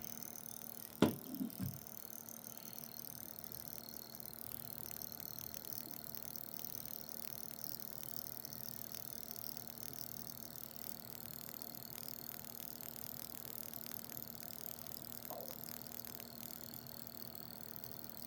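Small home-built pulse motor running: a four-magnet rotor spinning past three coils, with a fast train of faint clicks as the reed switch pulses the coils over a faint steady hum. A single sharp knock about a second in.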